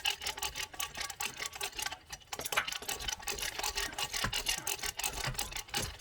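Hand ratchet of a come-along winch being cranked, giving a rapid, irregular run of metal clicks.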